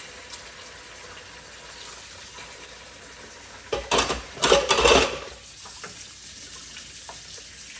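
Water running from a kitchen tap into a sink, with a loud burst of knocks and splashing about four seconds in that lasts a second and a half.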